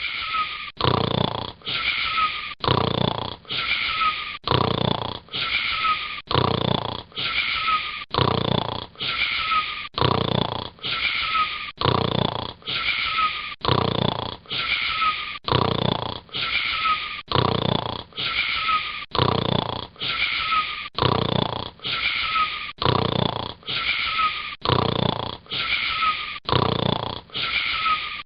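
A boy snoring, breaths repeating in a very even rhythm a little faster than one a second, each cut off by a short gap.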